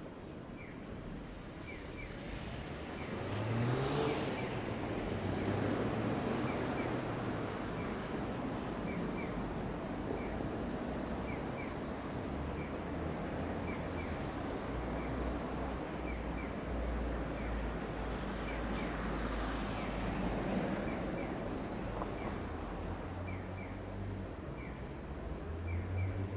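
Long container freight train rolling past steadily, its wagon wheels clicking in pairs over the rail joints. A road vehicle also goes by twice, falling in pitch as it passes.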